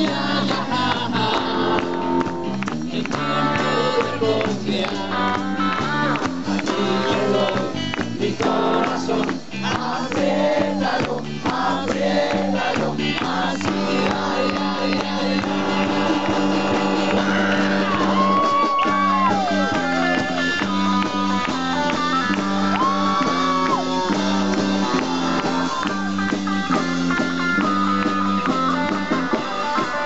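Live rock and roll band playing a song through a stage PA: electric guitars, bass and drums keeping a steady beat.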